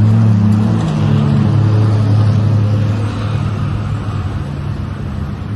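Motor vehicle engine running with a steady low hum, its pitch dropping slightly about a second in as the engine eases off.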